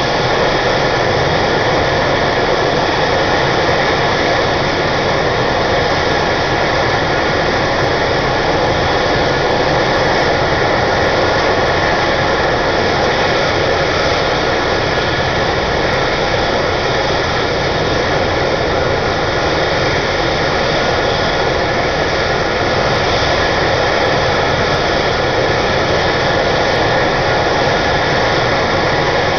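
Medevac helicopter's turbine engines and rotor running steadily on the ground before lift-off, a constant high whine over dense rotor and exhaust noise.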